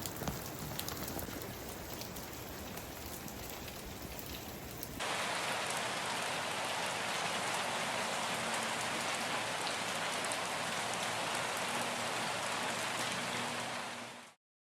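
Rain falling steadily, with fine drop clicks. About five seconds in it jumps abruptly to a louder, denser rain, which fades out just before the end.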